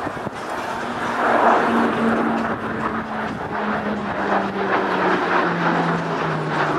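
Twin Allison T56 turboprop engines and propellers of an E-2C Hawkeye in a low flypast: a loud propeller drone whose pitch falls steadily as the aircraft passes overhead, loudest about a second or two in.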